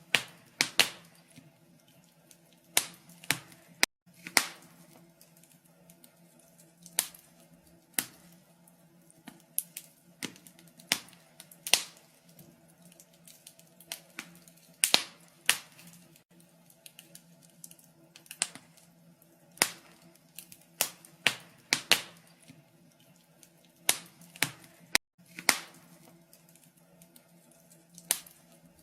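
Wood fire crackling in a fireplace: irregular sharp pops and snaps, about one a second, some in quick clusters, over a faint steady hum.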